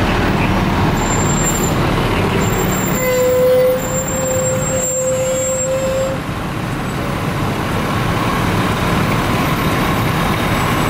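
Fire engines' diesel engines running as the trucks drive past one after another. A steady horn tone sounds about three seconds in and holds for about three seconds.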